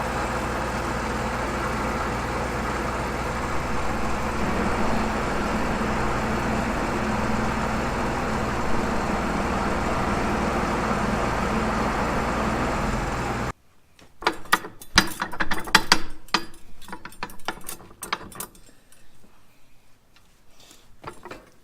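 John Deere 8110 tractor's diesel engine running steadily while backing up to hitch a disc. About two-thirds of the way through it cuts off suddenly to a quieter run of scattered metal clinks and knocks from the hitch being coupled.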